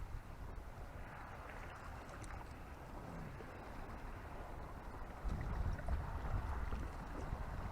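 Steady wind and water noise with the wind buffeting the microphone, heavier low rumbling gusts from about five seconds in.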